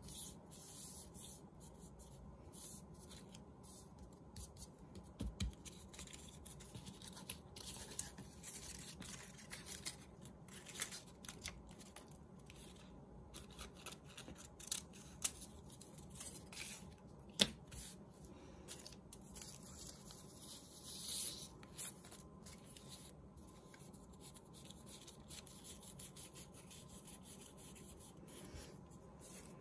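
Faint rustling and rubbing of paper strips being pressed and smoothed down by hand, with scissors snipping paper and a few light taps.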